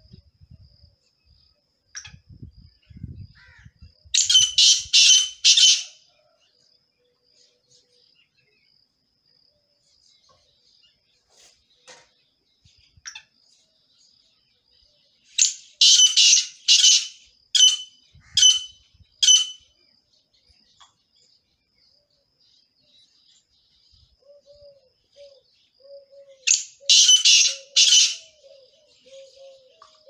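Partridge calling in three bouts of rapid, harsh repeated notes, each bout lasting about two seconds, with long pauses between them.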